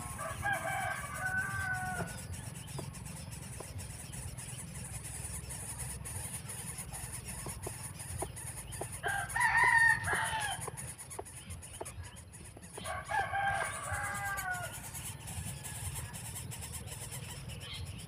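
Rooster crowing three times: once at the start, once more loudly about nine seconds in, and again about thirteen seconds in, each crow a drawn-out call that falls at the end. A steady high-pitched hum continues underneath.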